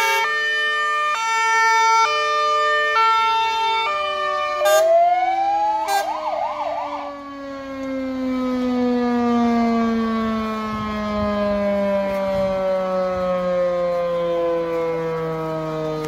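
Fire engine sirens sounding in greeting: a two-tone hi-lo siren alternating about once a second, then around four seconds in a rising wail and a brief fast yelp, after which a siren winds down in a long, slowly falling tone. Two sharp clicks cut in between about four and a half and six seconds.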